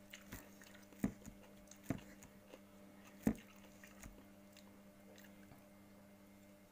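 A person eating flatbread and cucumber close to the microphone: soft chewing, with three sharp crunches or clicks, about a second in, near two seconds and a little past three seconds. A steady low hum runs underneath and stops near the end.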